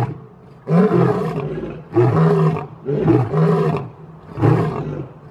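Male lion roaring: a series of about five short, deep roars, roughly one a second.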